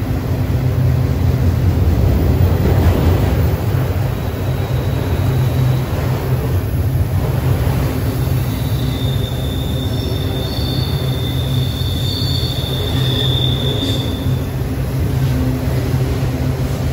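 Autorack freight cars rolling past, a steady low rumble of steel wheels on rail. A high-pitched wheel squeal comes in about nine seconds in and fades after about five seconds.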